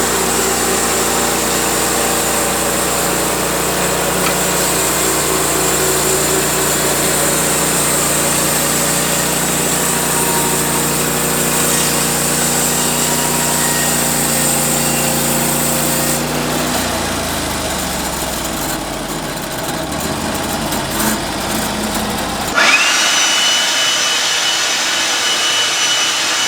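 Sawmill engine running steadily, then slowing and winding down about two-thirds of the way through. Near the end the sound changes suddenly to a steady high whine.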